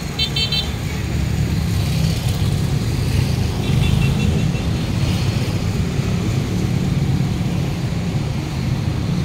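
Steady low rumble of a motor vehicle engine running, with brief high chirps near the start and again about four seconds in.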